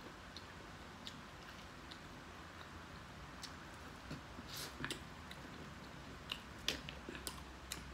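Eating corn on the cob coated in seafood-boil sauce: faint biting and chewing with small wet clicks and smacks, sparse at first and more frequent and louder in the second half.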